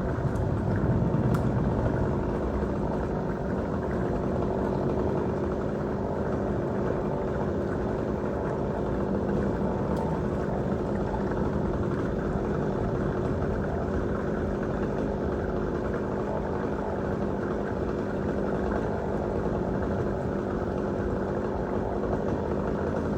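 An engine running steadily at a constant speed, with an even, unchanging drone.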